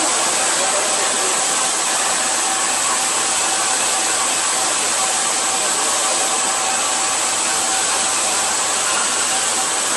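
CNC cylindrical grinder running: a steady, even hiss with a thin high whine held throughout.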